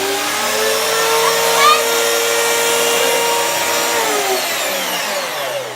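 Hoover Spirit S3261 upright vacuum cleaner (120-volt US model) running steadily. About four seconds in it is switched off, and its motor whine falls in pitch as it winds down.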